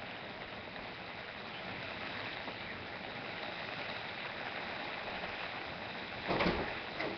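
Steady rain falling, an even hiss. A brief louder thump comes about six seconds in.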